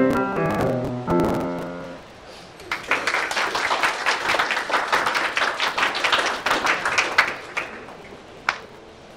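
A Steinway grand piano's last chords ring and die away, then an audience applauds for about five seconds, with a single last clap near the end.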